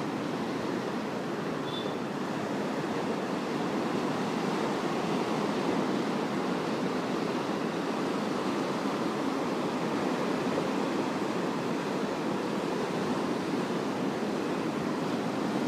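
Rough sea surf breaking and washing over rock boulders at the shore, a steady roaring wash of churning waves.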